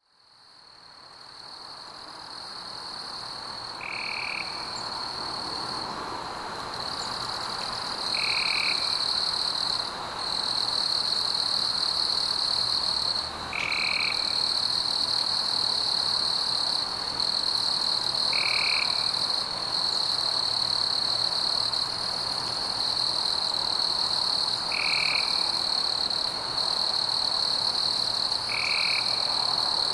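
Night-time chorus of frogs calling: a continuous high trill, with a shorter, lower call that recurs about every four to six seconds. It fades in over the first few seconds.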